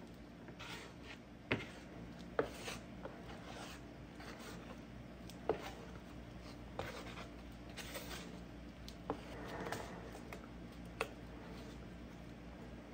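A flat spreader scraping and smearing body filler across a mixing board: soft, uneven rubbing strokes with scattered sharp taps and clicks as its edge catches the board.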